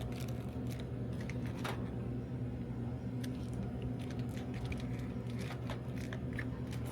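Steady low electrical hum with scattered light clicks, taps and rustles of snack packets being handled and loaded.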